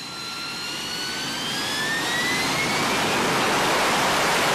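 Harrier jump jet's Pegasus turbofan spooling up: a whine that rises in pitch over a rushing noise, growing louder for about three seconds and then holding steady as the whine fades into the rush.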